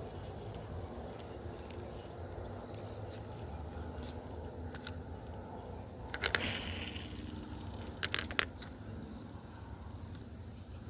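Steady low outdoor rumble, with a brief rustle and a few sharp clicks about six seconds in and a quick cluster of clicks about eight seconds in.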